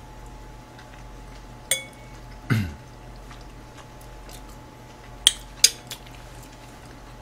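A metal fork clinking against a dish: one clink with a short ring just under two seconds in, a duller knock a moment later, and two sharp clinks about half a second apart near the five-second mark.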